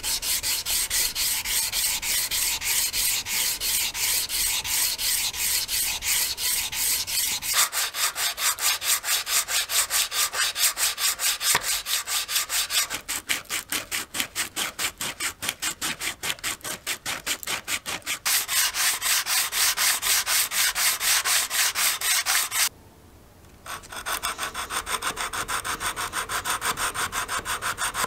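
Hand sanding of rosewood with sandpaper, quick back-and-forth strokes several times a second. The strokes break off for about a second near the end, then resume.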